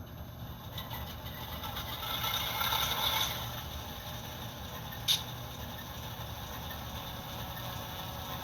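The DCC sound decoder in an HO scale Atlas CSX Dash 8-40CW model locomotive plays its diesel engine startup sequence through the model's small speaker. The engine sound builds to its loudest about three seconds in, then settles into a steady idle, with one sharp click about five seconds in.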